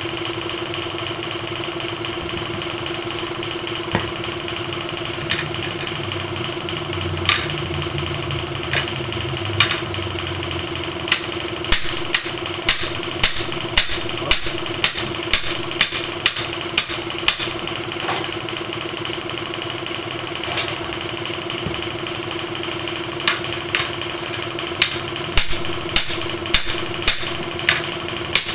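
A motorcycle engine idling steadily, with runs of sharp knocks about one or two a second in the middle and near the end.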